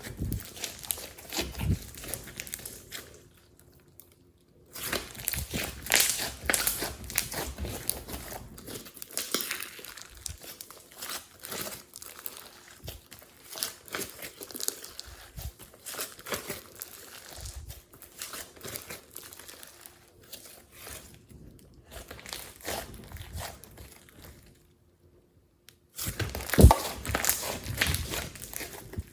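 Glossy slime being squished and pressed by hand, making dense sticky clicks and crackles. The sound breaks off twice, briefly, about four seconds in and near the end.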